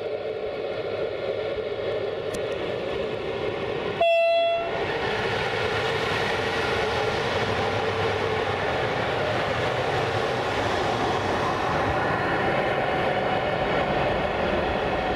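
CFR class 060-EA (LE 5100 kW) electric locomotive running light, its machinery humming steadily as it approaches. About four seconds in it gives one short horn blast, the loudest sound, then passes close by with a broad noise of wheels and machinery.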